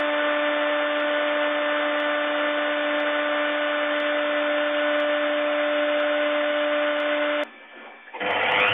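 CNC milling spindle running steadily while a small end mill trims the edge of a rotating PVC pipe straight: a steady hum with a whine over it. It cuts off about seven and a half seconds in, and near the end a spindle starts again with a rising whine as it spins up.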